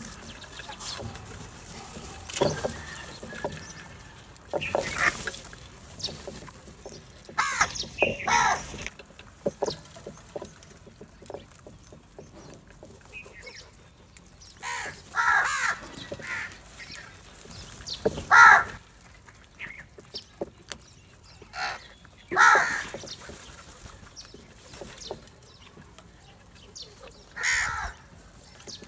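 House crows cawing: harsh single caws and short runs of calls every few seconds from a flock gathered at food, with faint clicks between the calls.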